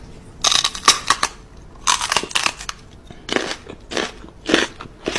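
A person making mouth and nibbling noises while playfully biting a dog's paw, in a series of short, noisy bursts.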